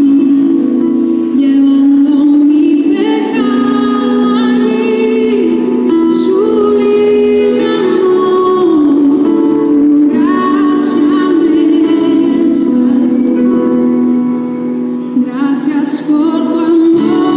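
Slow Christian worship song with a woman singing over steady held chords.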